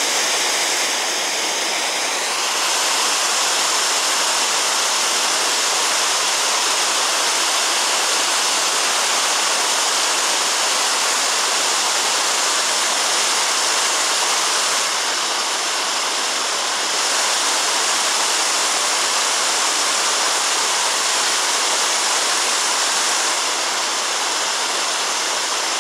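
Whitewater of a fast mountain creek tumbling over boulders: a loud, steady rushing.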